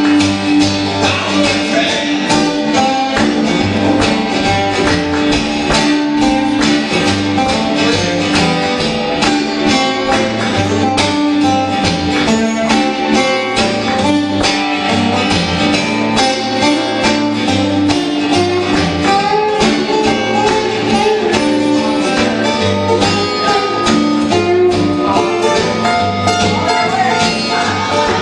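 Two acoustic guitars playing together in a steady, continuous passage of a song.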